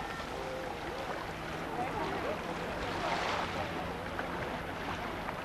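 Beach bathing ambience: shallow sea water sloshing around people wading, with distant voices and children's calls of other bathers and a steady low hum underneath.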